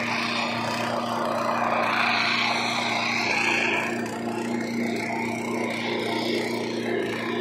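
Small petrol engine of a portable rail-track machinery unit running steadily, with a rushing noise over it that swells about two seconds in.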